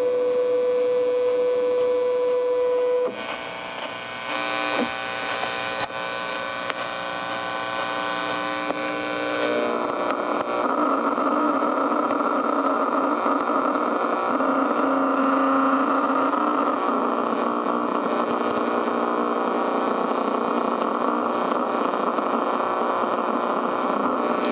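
Distortion-pedal noise from a ProCo RAT and Marshall Guv'nor through a Marshall mini-stack amp: electronic droning and buzzing tones with the guitar strings held muted. A steady tone for the first few seconds drops away, the pitch shifts as the pedal's knobs are turned, and from about ten seconds in it becomes a louder, denser buzz.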